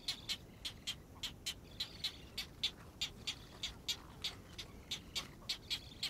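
Great egret chicks calling at the nest: a rapid, fairly even series of short, high clicking peeps, about four a second.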